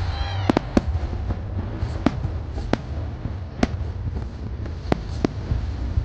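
Aerial fireworks shells bursting, sharp bangs at irregular intervals, about seven in six seconds, over a steady low rumble.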